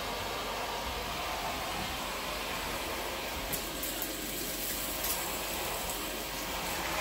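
Vacmaster 2.5-gallon, 2 peak horsepower shop vac running steadily while vacuuming a floor, a constant whooshing hiss with a few faint ticks around the middle.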